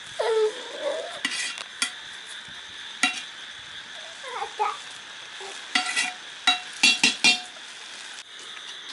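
A spoon stirring and scraping through cooked rice in an aluminium pot, with irregular clinks and scrapes against the metal, busiest near the end.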